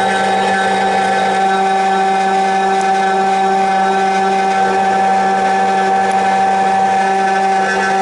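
SEC-E9 key cutting machine running steadily with an even motor whine while it mills the second side of an HU92 key blank.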